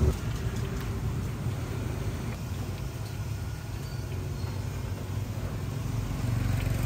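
Steady low rumble of street traffic and motorbike engines, with a thin hiss of hot oil sizzling in a wok of deep-frying battered bananas.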